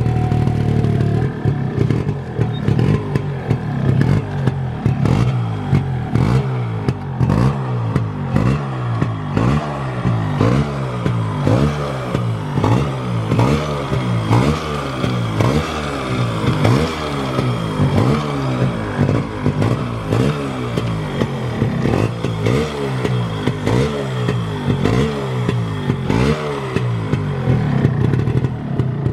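Yamaha RX 135's air-cooled single-cylinder two-stroke engine through a CAT silencer, idling and then revved in quick throttle blips about once a second, the revs climbing and dropping over and over before settling back to idle near the end.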